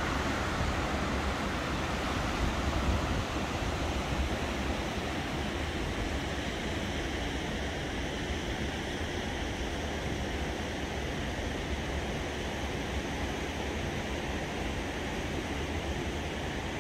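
Steady rushing of a whitewater mountain river in a rocky gorge, with a low rumble of wind.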